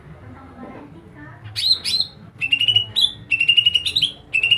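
A songbird singing loud, rapid phrases of repeated high notes with quick upward sweeps between them, starting about a second and a half in, broken by short pauses.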